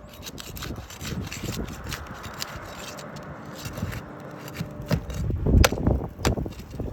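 Roof shingles being scraped and pried at with a hand tool during a shingle repair: a rough rubbing and scraping, then several loud sharp knocks and clicks in the last two seconds.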